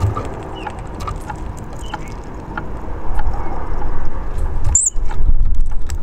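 Scattered sharp clicks of hawfinches cracking seeds at a wooden bird table, over a low rumble that gets louder about halfway through, with a few short high bird chirps.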